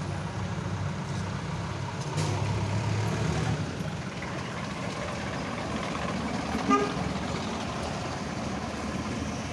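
Low engine rumble of street traffic, including a jeepney passing close by, with one short horn toot about two-thirds of the way in.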